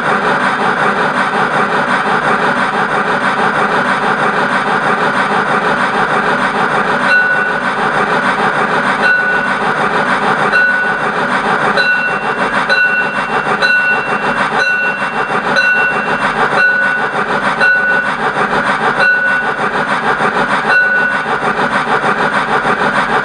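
Factory sound module of a Piko BR 50 garden-railway steam locomotive model playing steam-engine running sound through its small speaker, a steady rasping noise. From about a third of the way in, short high pitched pips repeat roughly once a second, then stop near the end.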